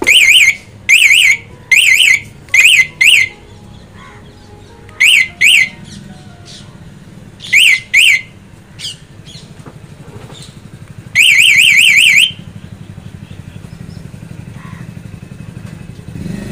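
Aftermarket anti-theft alarm siren on a Honda Dio scooter chirping in answer to its remote key fob: short, fast-warbling chirps, singly and in pairs, then after a pause one longer warble of about a second. A low steady hum runs underneath and grows louder after the long warble.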